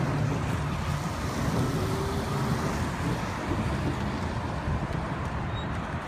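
Steady rain with wind buffeting the microphone, and a low rumble underneath.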